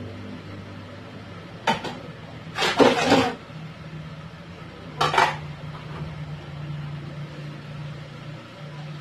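Dishes clinking and clattering at a sink as plates and bowls are washed: a short clink about two seconds in, a louder clatter around three seconds, and another clink about five seconds in, over a low steady hum.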